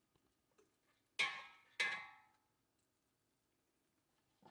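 Metal tongs clinking against a stainless steel plate: two sharp, ringing clinks a little over half a second apart, each fading quickly, and a smaller clink at the very end.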